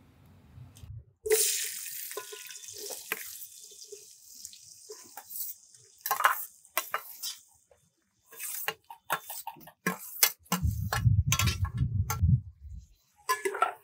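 Sliced onions dropped into hot mustard oil in an aluminium pot start sizzling suddenly about a second in, the hiss fading over the next few seconds. Then comes a run of clinks and scrapes as a steel spoon pushes the rest of the onions off a steel plate into the pot.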